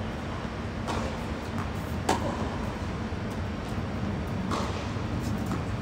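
Tennis ball struck by racquets and bouncing on a hard court: a few short sharp pops, the loudest about two seconds in and another at the very end, over a steady low background hum.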